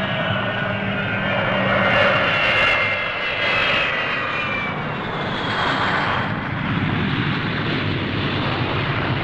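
Concorde 001's Olympus 593 jet engines running as the aircraft passes low on approach, a steady roar with a high whine that falls slightly in pitch over the first few seconds.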